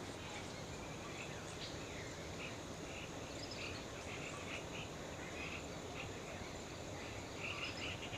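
A chorus of small animal calls: many short chirps scattered throughout, with a quick run of rapid chirps near the end, over steady low background noise.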